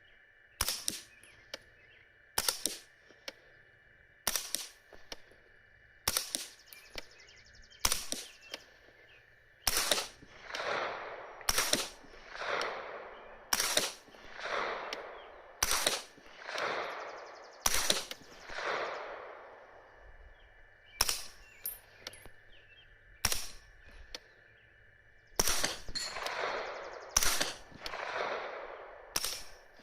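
Suppressed 9mm AR-9 carbine fired semi-automatically, a single shot every second or two, with a mix of subsonic and supersonic rounds. In two runs of shots, in the middle and near the end, each report is followed by a louder, drawn-out echo.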